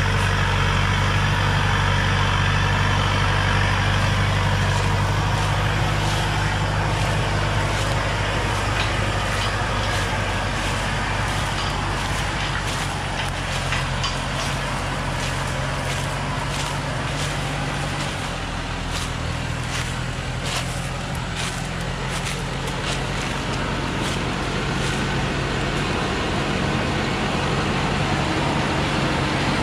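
Diesel engine of a loaded Thaco Forland truck running steadily as it crawls along a forest dirt track, its note shifting about two-thirds of the way through. Scattered crackles of dry leaves and twigs break in over the middle part.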